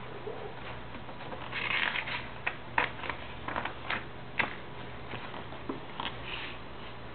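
Pencil and paper worksheet being handled on a desk: scattered light taps and clicks, with a brief rustle about two seconds in, over a low steady hum.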